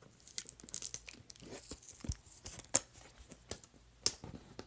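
A small box being opened and handled by hand: irregular rustling and sharp clicks of the lid and the packaging inside.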